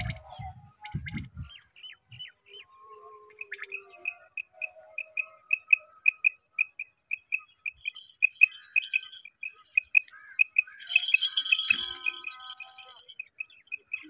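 Quail calling: a long run of short, high pips, about four a second, with other bird chirps overlapping the run for a couple of seconds past its middle.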